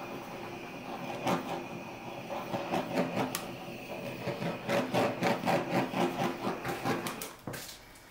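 Handheld butane torch running with a steady hiss and a rapid irregular crackle as it is passed over wet acrylic paint to pop air bubbles. It cuts off about seven and a half seconds in.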